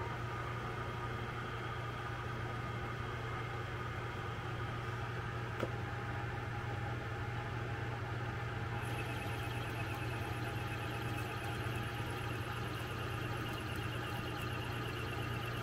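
Metal lathe running, its spindle and chuck turning with a steady hum. There is a single click a little over five seconds in, and a faint, rapid high-pitched rattle joins about nine seconds in.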